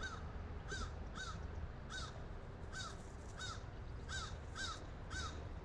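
A bird calling in a quick series of about nine short, evenly spaced calls, roughly one every half second.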